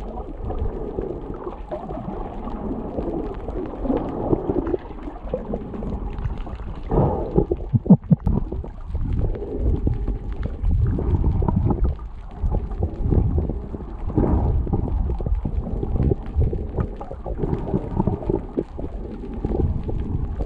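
Muffled underwater sound heard through a camera underwater: a low, uneven rumble of moving water with scattered short clicks and a few louder swells.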